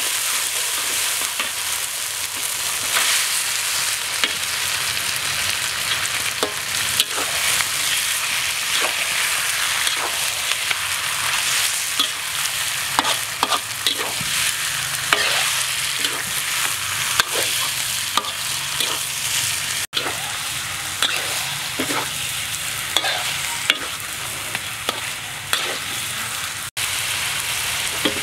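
Oil sizzling in a wok while a spatula stirs and scrapes chili paste and then chunks of stingray, with frequent sharp clacks of the spatula against the wok over a steady frying hiss.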